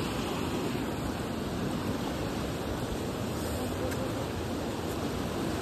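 Fast-flowing mountain river rushing past close by: a steady, unbroken wash of water noise.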